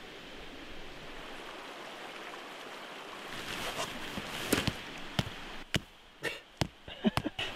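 Stream running steadily, then tent fabric rustling as the tent is shaken out, followed by a series of sharp knocks from a rock striking a metal tent peg into the ground.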